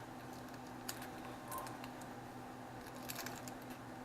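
Cooked shrimp being peeled by hand: faint scattered clicks and crackles of shell, with a small cluster about three seconds in, over a steady low hum.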